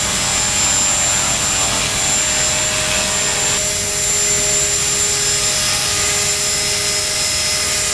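Align T-Rex 450 electric model helicopter hovering: a steady whine from the brushless motor and gears over the buzz of the rotor blades.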